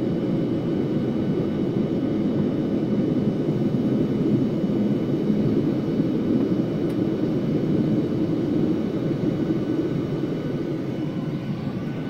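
Airliner engines and airflow heard inside the passenger cabin in flight: a steady, even low cabin noise with faint steady high tones over it.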